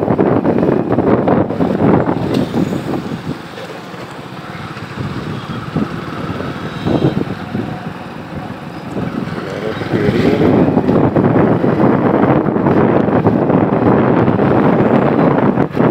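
Riding noise from a moving motorbike: wind rushing over the microphone mixed with the engine and tyres on wet tarmac. It eases off for several seconds after the start, then grows louder again about ten seconds in.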